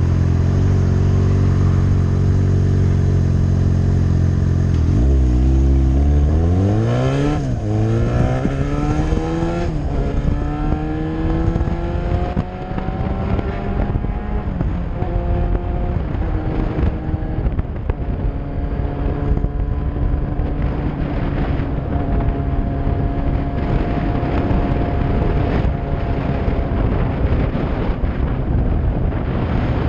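Yamaha R6's inline-four engine running steadily at low revs, then accelerating hard about five seconds in: the pitch climbs and drops back at each of two or three quick upshifts before settling into a steady cruise.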